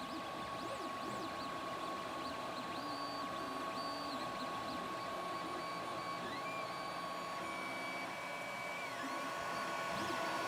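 Creality Ender-3 3D printer printing, its fans giving a steady hum. Over the hum the stepper motors whine in short tones that rise, hold and fall as the print head moves.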